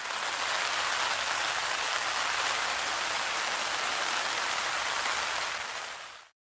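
A steady, even hiss like falling rain fades in, holds level and fades out about six seconds in. It is a noise effect filling a gap between two songs.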